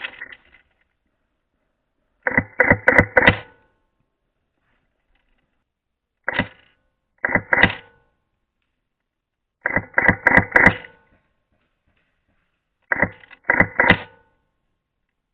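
Airsoft gun shots in short strings of quick sharp pops, several clusters of three to five shots and a few single pops, with dead silence between them.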